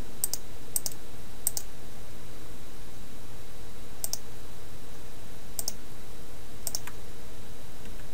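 Six sharp, irregularly spaced clicks from a computer mouse and keyboard, over a steady low hum.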